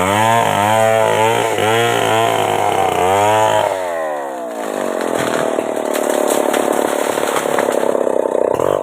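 Stihl two-stroke chainsaw revving in repeated throttle blips, then dropping in engine speed about four seconds in and running steadily at a lower speed.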